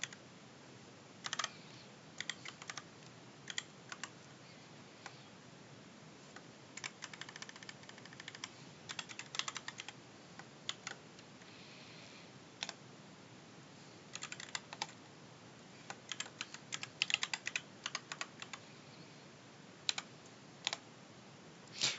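Computer keyboard typing in irregular bursts of keystrokes with pauses between them.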